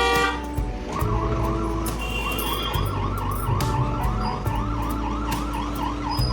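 A short honk-like tone, then from about a second in a fast wailing siren whose pitch rises and falls about three times a second, over a steady low hum.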